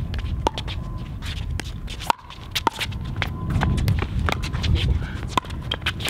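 Pickleball rally: paddles strike the hard plastic pickleball again and again with sharp pops, roughly half a second to a second apart, while sneakers shuffle on the court between hits.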